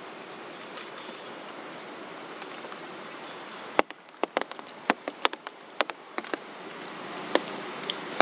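Rain falling with a steady hiss. From about four seconds in come a dozen or so sharp, irregular taps of drops striking close by, with a couple more near the end.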